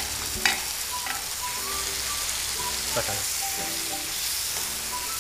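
Chicken pieces in masala sizzling as they fry in a nonstick kadai, stirred with a metal spatula that scrapes and knocks against the pan, the sharpest knock about half a second in.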